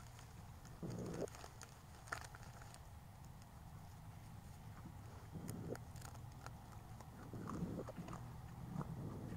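Faint, irregular crunching and scuffing noises, four or five short bursts a second or more apart over a low steady hum, from a woodland field recording that the uploader presents as a sasquatch eating.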